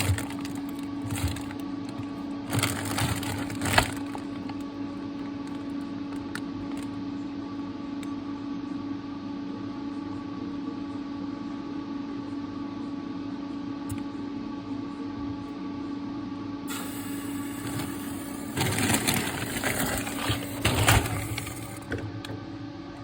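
Refrigerator giving off a steady, even hum. Short rustles and knocks come through briefly a few seconds in and again near the end. The owner takes the hum as a sign that the nearly new fridge has been damaged.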